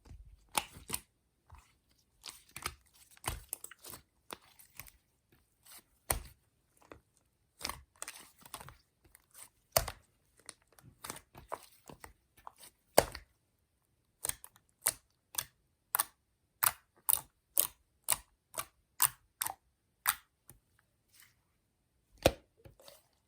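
Slime being handled by hand, giving a series of sharp, crisp clicks and pops. The clicks come irregularly at first, then settle into a steady run of about two a second in the second half.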